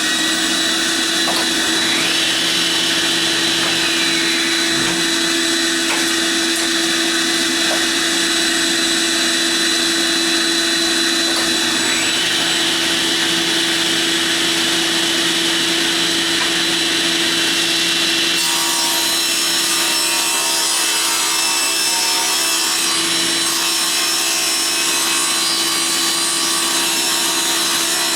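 Power saw running steadily and cutting wood, with a constant motor whine throughout. The cutting noise changes character about two-thirds of the way in.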